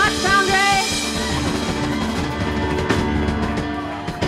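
Rock band finishing a song live: a drum kit played hard and fast with bass drum and snare, cymbals crashing near the three-second mark and again just before the end, over a sustained keyboard chord.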